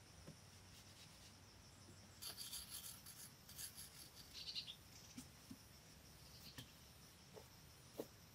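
Faint scratchy scraping of a blade worked across a carved clay block, in a run of short strokes between about two and five seconds in. A sharper knock sounds near the end.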